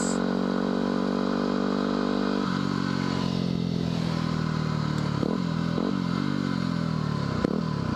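Yamaha WR250R's single-cylinder four-stroke engine running at a steady cruise. About two and a half seconds in the throttle closes and the engine note falls slowly as the bike slows, with a few light clicks near the end.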